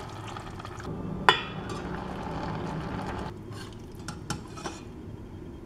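A spoon stirring squash cooking in a pot, knocking against the pot. One sharp clink about a second in is the loudest sound, and a few lighter clinks follow near the end.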